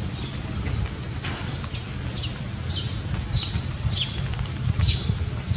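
A series of short, high, downward-sweeping animal chirps, roughly one every half second from about two seconds in, over a steady low rumble.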